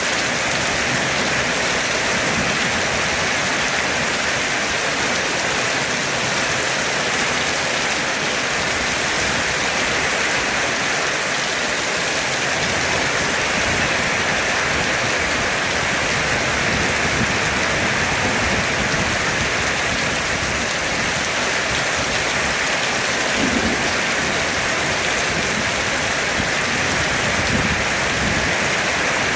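Heavy rain falling steadily, an even hiss of downpour with no break.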